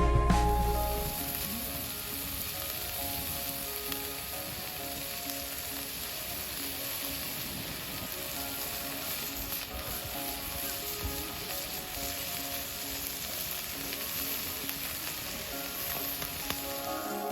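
Food sizzling as it fries on a hot pan or grill, a steady hissing spatter, with soft background music underneath.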